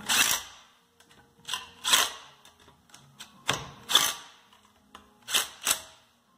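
Cordless power driver with a 1/2-inch socket running in short bursts, tightening the bolts that hold an alternator adapter plate to a small engine. After one burst at the start, the bursts come in quick pairs about two seconds apart, one pair per bolt.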